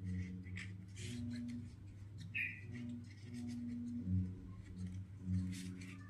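Low background music with held, changing bass notes, over the light crackle and rustle of a banana leaf being rolled and folded into a cone by hand.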